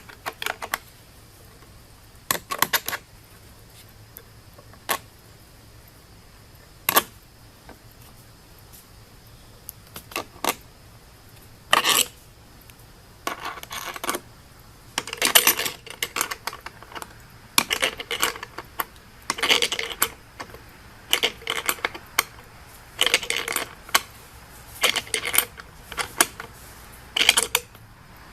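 Metallic clicking and clinking of steel bolt hardware and a hand wrench being worked. It is sporadic at first, then comes in short bursts about once a second, like ratchet strokes tightening a nut.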